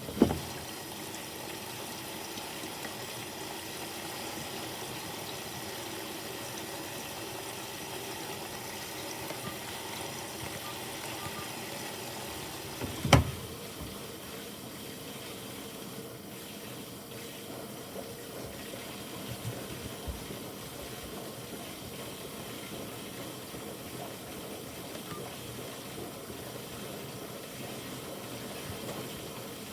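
Bosch washing machine on its Quick 15 cycle with a pillow in the drum: a steady rush of water running in and sloshing. There is a sharp thump right at the start and another about 13 seconds in.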